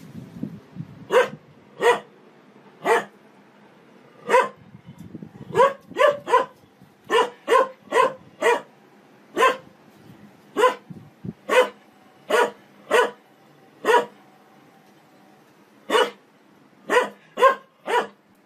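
Dog barking at a front-loading washing machine as its drum turns: about twenty short, sharp barks, some single and some in quick runs of two or three, with pauses of a second or more between.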